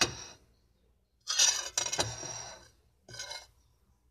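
Table knife scraping and clinking against a ceramic plate as it cuts through a slice of tapioca cake, in three strokes, the middle one longest and loudest.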